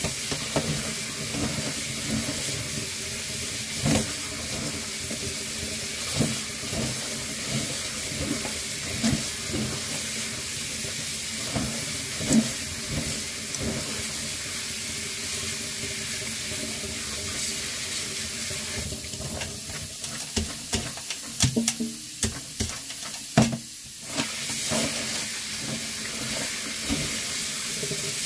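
Kitchen tap running into a stainless steel sink, the water splashing over hands rubbing chopped vegetables in a metal mesh colander. A few short sharp knocks come through the steady rush of water, the loudest about three-quarters of the way through.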